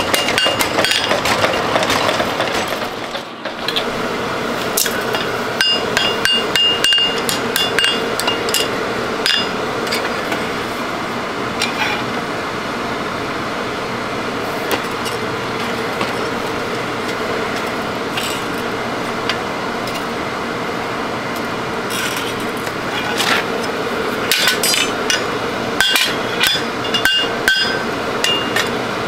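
A blacksmith's hand hammer strikes red-hot steel on an anvil while forging a pitchfork tine, and the anvil rings on the blows. Quick runs of blows come at the start and again near the end. In between the blows are sparser, over a steady background hum.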